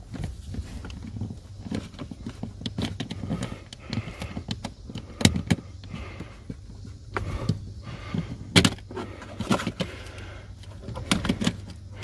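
Irregular plastic clicks, taps and rattles from hands working the HVAC mode-door cam and its push-pull cable under a car's dash, with two sharper knocks, one midway and one about two-thirds through, over a steady low hum.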